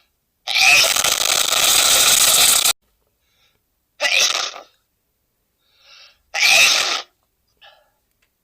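A man sneezing three times in a row. The first sneeze is long and drawn out, the next two are short, with faint breaths in between.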